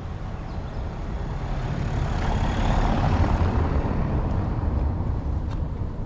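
A motor vehicle passing close by: its engine and tyre noise swell over a couple of seconds, peak about halfway through, then fade away.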